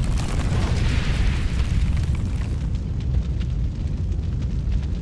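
A loud, deep, continuous rumble with crackle. A bright hissing layer on top cuts off about three seconds in.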